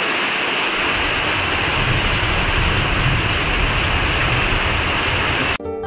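Heavy monsoon rain pouring down steadily, with water streaming off a corrugated metal roof. A low rumble comes in about a second in. Near the end the rain cuts off abruptly into acoustic guitar music.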